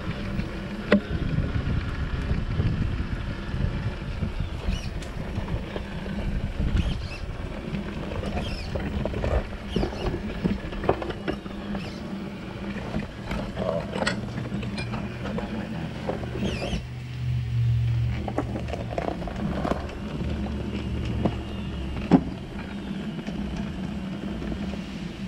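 Electric motor and drivetrain of a Traxxas TRX-4 RC crawler running, heard from a camera mounted on the truck, with scattered knocks and clicks as it climbs over wood scraps and rubble. The hum grows louder and steadier for several seconds past the middle.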